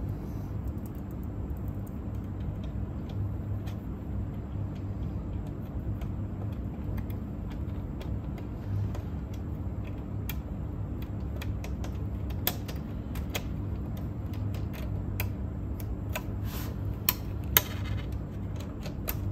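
Scattered small clicks and taps of screws and a screwdriver being worked into a cassette deck's chassis, sparse at first and busier in the second half, with two sharper clicks near the end. A steady low hum sits underneath.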